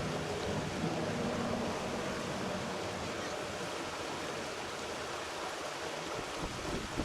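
Steady rush of creek water, with wind buffeting the microphone near the end.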